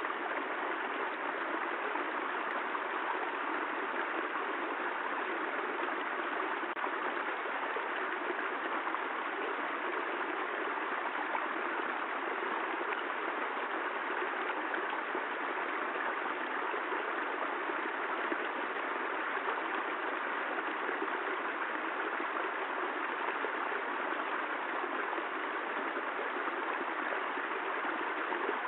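Steady rain: an even rushing hiss with no distinct drops or thunder.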